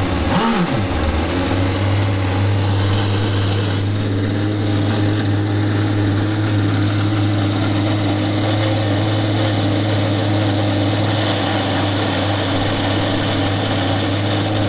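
29cc Zenoah two-stroke petrol engine in an RC power boat, revving briefly in the first second and then settling into a steady idle.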